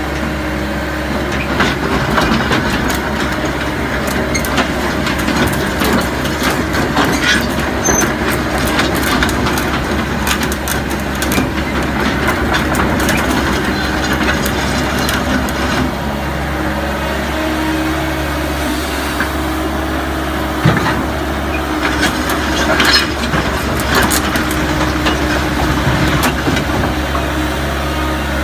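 Sumitomo S265 excavator's diesel engine running steadily under load as the machine turns around, with scattered clicks and crackles from the machine over the hum.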